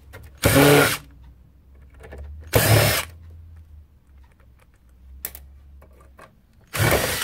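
DeWalt cordless driver with a Robertson square-drive bit, backing screws out of a sheet-metal case in three short bursts of about half a second each: one near the start, one about two and a half seconds in, and one near the end.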